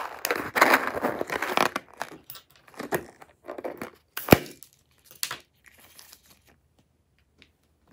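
Hands squeezing a slime-filled balloon packed with crunchy beads, giving crackly crunching for the first couple of seconds. A single sharp snap comes about four seconds in as scissors cut the balloon's rubber, followed by a brief rubbery rustle.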